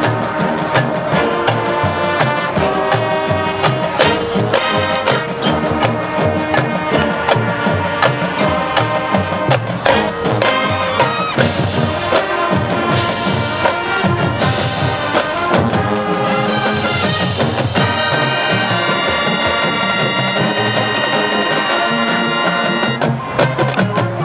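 High school marching band playing: brass over drumline percussion, ending on long held chords in the last several seconds.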